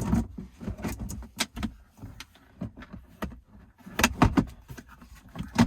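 Clicks and knocks of plastic console trim parts being handled and fitted, with a louder cluster of knocks about four seconds in and a sharp knock near the end.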